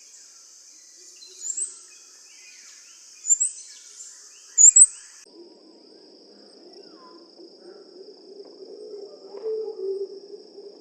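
Forest ambience: a steady high insect drone, with a small bird giving short, sharp high call notes three or four times in the first half. About halfway through, the sound changes abruptly to a thinner insect drone over a low, rough murmur.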